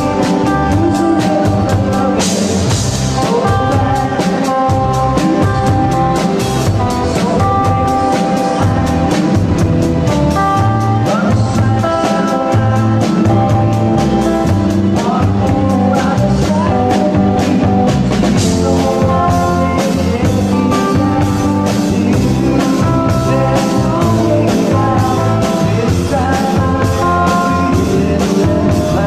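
Live rock band playing, with a drum kit keeping a steady beat under guitar, keyboard and a man singing. Cymbal crashes ring out about two seconds in and again a little past the middle.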